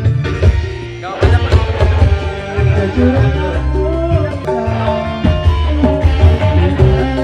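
Live band music with keyboard, a steady drum beat and heavy bass, with a man singing the melody into a microphone.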